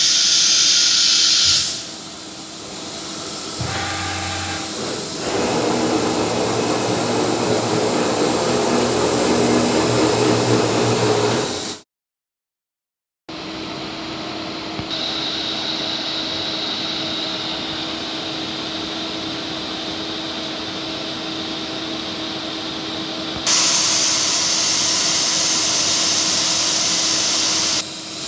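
Flexicam CNC router running: a high-pitched hiss that cuts off and changes character several times, with a louder, rougher stretch and a steady hum, broken by about a second of silence near the middle.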